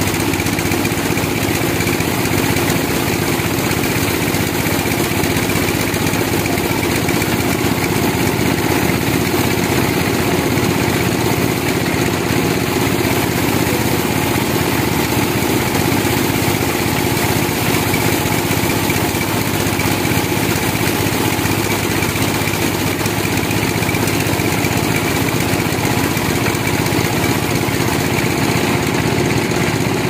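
Large HDF band sawmill running as its blade saws lengthwise through a big log, a steady machine noise that stays unchanged throughout.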